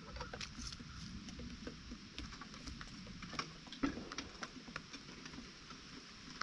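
Chickens moving about, making scattered light taps and scratches, with a few soft clucks right at the start and one sharper tap just before the four-second mark.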